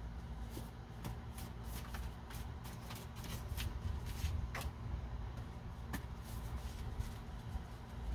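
A deck of tarot cards being shuffled by hand: an irregular run of quick, soft flicks and clicks.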